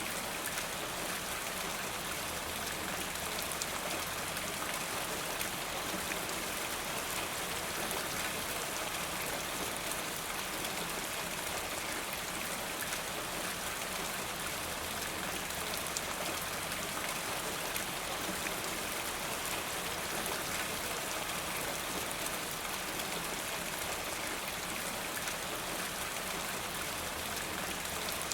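Steady rain falling, with scattered individual drops ticking and water running off a rain gutter. The sound stays even throughout.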